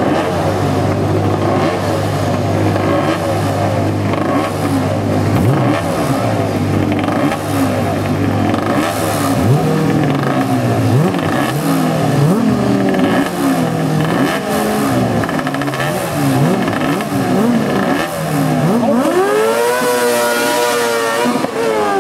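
Racing sidecar outfit's four-stroke engine idling on the start line, then blipped again and again in short rising-and-falling revs. About nineteen seconds in it is revved hard for the launch, climbing and dropping once at a gear change.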